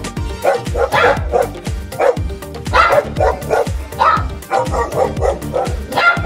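A dog barking many times in quick succession, with background music.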